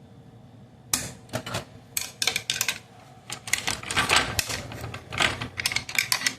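Metal parts of a Chevrolet Cobalt manual gearbox clicking and clattering against each other as the reverse gear is worked loose by hand. The sharp, irregular clicks start about a second in and come in quick clusters.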